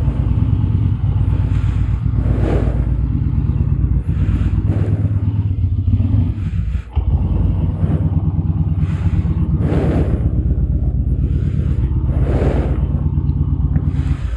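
Motorcycle engine idling steadily, picked up by a mic inside the rider's helmet, with a rush of noise every two to three seconds.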